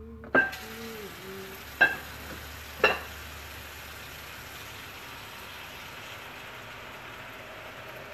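Steady hiss from a pot heating over a lit gas burner, setting in just after the start. Three sharp knocks come in the first three seconds and are louder than the hiss.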